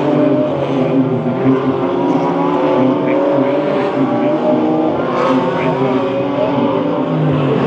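Several GT4 race car engines running at once on track, loud and steady. Their notes at different pitches overlap and drift slightly up and down.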